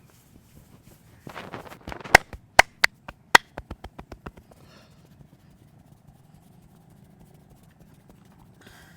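Percussive massage strokes with the hands: a short rub, then sharp hand taps. Four loud taps come about half a second apart, followed by a quicker string of fainter taps that fades away.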